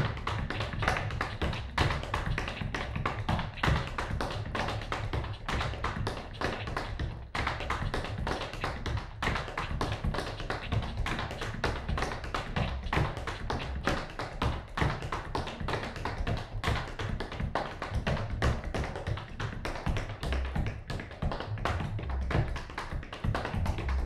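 Tap shoes striking a hard floor in a fast, continuous stream of taps, with music underneath.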